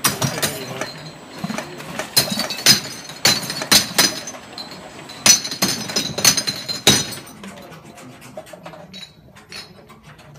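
Amber glass bottles clinking and knocking against each other and the guides on a labelling machine's conveyor, in loud, irregular sharp clinks. About seven seconds in the clinking thins out and it goes quieter.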